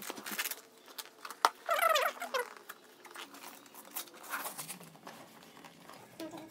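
Fingernails scratching and picking at packing tape on a cardboard parcel: a string of short scrapes and ticks, with one sharp click about one and a half seconds in. A brief wavering vocal sound comes around two seconds in.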